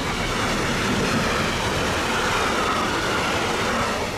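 Container freight train passing at close range: a steady loud rush of steel wheels on rail with wagon clatter. It eases slightly near the end as the last wagon goes by.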